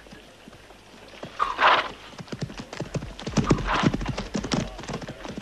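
Horses' hooves clopping on dirt as riders set off, the hoofbeats thickening over the second half. A horse gives two short, loud calls, about a second and a half in and again near four seconds in.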